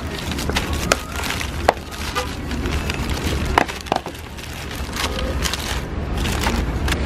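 Paper burger wrapper crinkling and crackling as hands unfold it from around a burger, with several sharp crackles, over a low steady rumble.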